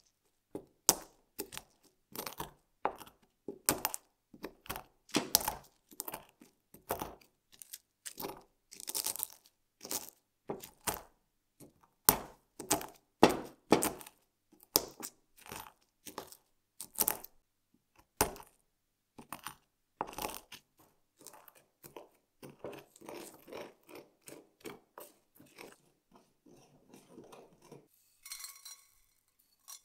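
Whole spices (cinnamon stick, cloves, allspice berries and cardamom pods) being crushed with a wooden pestle in a ridged ceramic mortar: a run of sharp, irregular crunches and cracks that eases into softer grinding. Near the end the crushed spices rattle as they are poured into a stainless steel saucepan.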